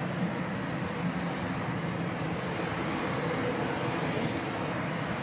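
Airbus A319 jet engines running as the airliner moves along the runway: a steady, even rush of noise with a low hum underneath.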